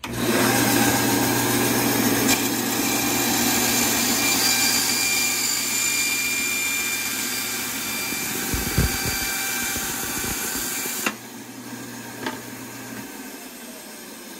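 Benchtop band saw cutting through a Citadel Boss-25's factory plastic stock, a loud steady rasp over the motor's hum. About eleven seconds in the loud cutting sound cuts off with a click, and the motor's pitch falls as it winds down.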